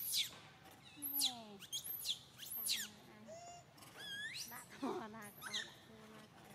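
A young macaque giving a series of short, high-pitched squeals, each rising and falling sharply in pitch. They come quickly over the first few seconds, then a few more follow, spaced further apart.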